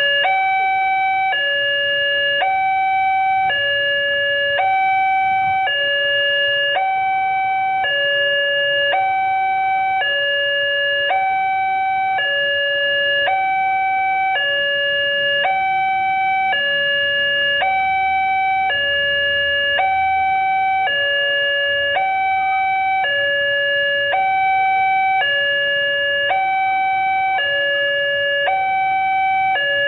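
Railway level crossing's electronic warning alarm sounding from the loudspeaker on the crossing signal: a steady two-tone signal alternating between a higher and a lower tone about once a second. It signals that the crossing is active, with the barrier down for an approaching train.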